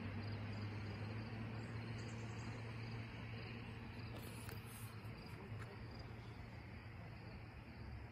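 Quiet lakeside outdoor ambience: faint insect chirping over a soft background hiss and a steady low hum that weakens after about halfway.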